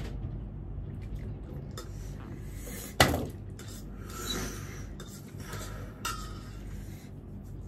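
Utensils and dishes clinking and scraping during a meal of noodles, with one sharp knock about three seconds in, the loudest sound, and a few lighter clatters after it.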